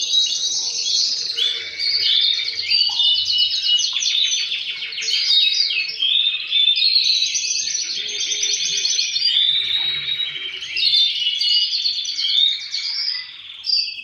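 Male canaries singing: a continuous stream of fast trills and rolls, several birds overlapping as the males answer one another, with a brief lull near the end.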